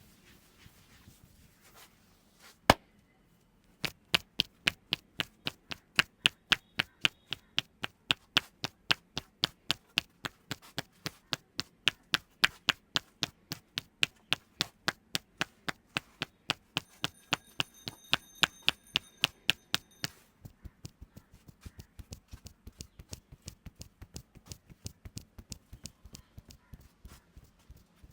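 Barber's hands chopping and slapping on a client's head during a head massage: one sharp slap, then a fast, even run of slaps about four a second, which turn softer about two-thirds of the way through.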